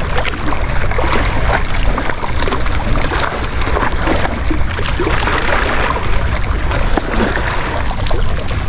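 Loud, steady wind rumbling on the microphone over the wash of sea water along the shore.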